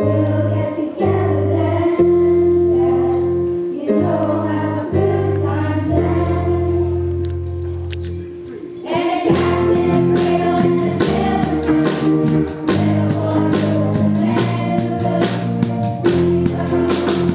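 Children's choir singing with a live student band of keyboard and electric guitars. A drum kit comes in about nine seconds in and the band plays a full, steady beat.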